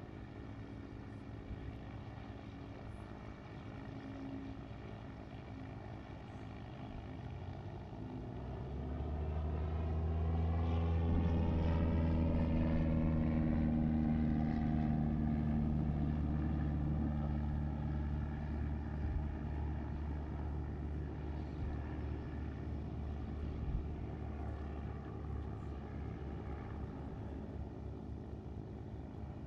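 A propeller aircraft flying past. Its engine drone swells about a quarter of the way in and is loudest a few seconds later, falling in pitch as it goes by, then fades slowly.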